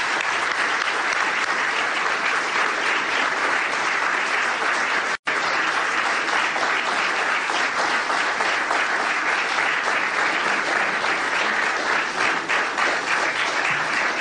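Steady applause from a standing crowd of many people clapping. It cuts out for an instant about five seconds in, then carries on.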